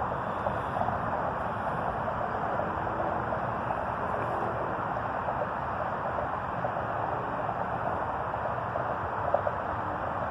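Floodwater of a swollen river rushing steadily, an even rushing noise with no breaks.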